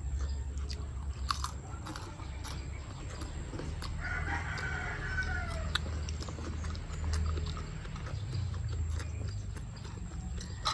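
A rooster crowing once, about four seconds in, over close-up chewing and biting with scattered sharp clicks and a steady low hum.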